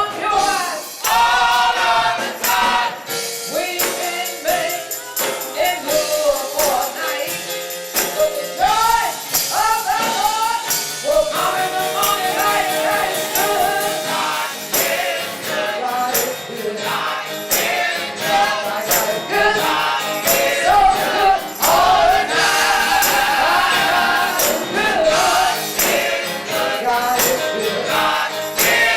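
Gospel music: choir voices singing and sliding through long held notes over a band, with jingling percussion.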